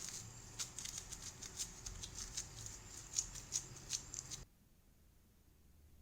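Plastic wrapping crinkling and crackling in irregular ticks as it is handled around date paste, stopping abruptly about four and a half seconds in.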